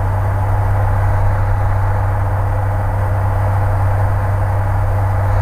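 Cessna L-19 Bird Dog's six-cylinder Continental O-470 engine and fixed-pitch propeller in cruise flight, heard from inside the cockpit: a loud, steady drone with a strong low hum that does not change.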